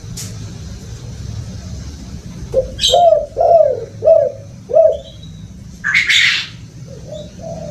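Spotted dove cooing: a quick run of five short coos, about two a second, then a fainter coo near the end. About six seconds in there is a short hissy burst, over a steady low rumble.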